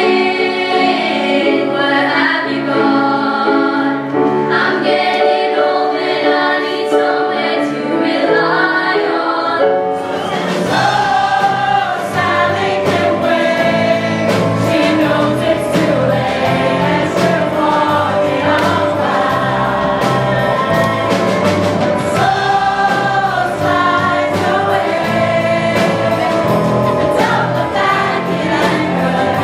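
A choir of young voices singing. About ten seconds in, a live band with drums comes in and carries on with the singing.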